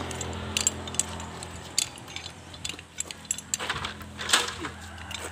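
Light metallic clinking and jangling, a quick scatter of small clicks, from a lineman's ladder and belt gear being handled as the extension ladder is carried and set up. A steady low hum runs underneath.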